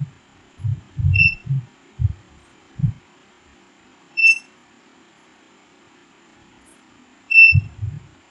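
Digital mosque prayer-time clock's buzzer giving three short high beeps, about three seconds apart, each acknowledging a remote-control button press as the setting menu steps on. Low dull thumps come between them, clustered in the first three seconds and again near the end, and are as loud as the beeps.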